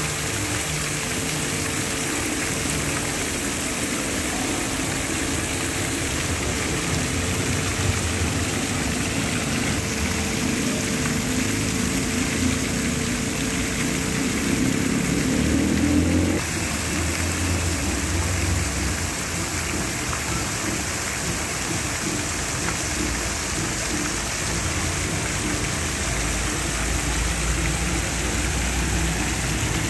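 Fountain water jets splashing steadily into the basin, an even rain-like hiss, with a low rumble of street traffic underneath.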